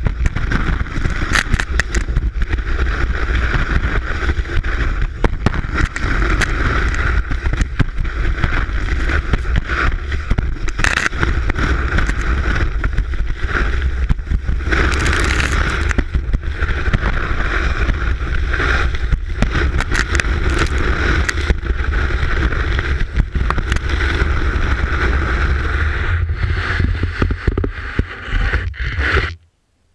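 Telemark ski running over snow, heard from a camera mounted on the ski: a continuous hiss and scrape of the ski on snow with many small knocks and rattles, over a heavy low wind rumble on the microphone. It cuts off suddenly near the end.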